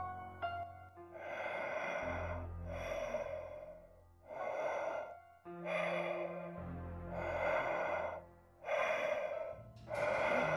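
Heavy, slow breathing, about seven long breaths roughly a second apart, over a low, droning horror music score.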